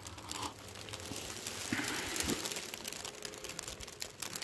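Large plastic garbage bag worn as a rain poncho crinkling and rustling with movement, a dense run of small crackles, over the hiss of falling rain.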